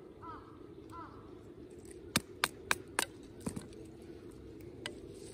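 Sharp wooden knocks as small firewood is split with a knife struck by a wooden baton: four quick strikes about two seconds in, then two lighter knocks later.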